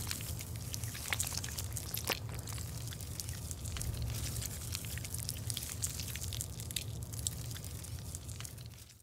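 Thick foundation cream being squeezed out of a tube's nozzle: soft, wet crackling made of many small clicks over a low, steady hum.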